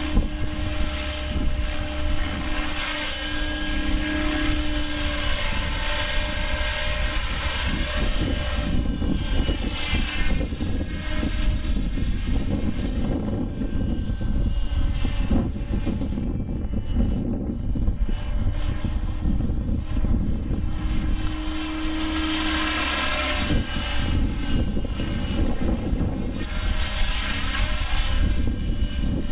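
Align T-Rex 600 radio-controlled helicopter in flight: a steady rotor and drivetrain whine that swells and fades as it moves about. Wind buffets the microphone with a constant low rumble.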